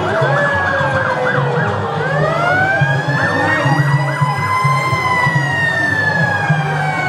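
Sirens of vintage NYPD police cars sounding together: fast yelping cycles over a slow wail that climbs for about three seconds and then slowly falls away.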